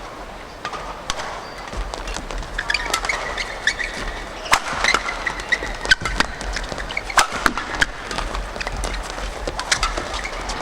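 Badminton doubles rally: rackets hitting the shuttlecock in a quick exchange of sharp cracks, with shoes squeaking on the court floor. The hits come thicker from about two seconds in.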